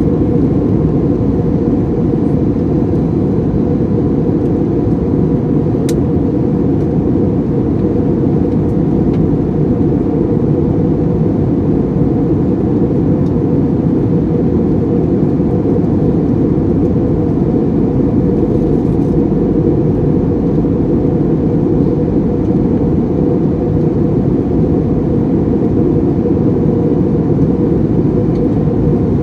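Steady in-flight cabin noise of an Airbus A321neo heard from a window seat: a low, even roar of engine and airflow with a faint steady hum above it.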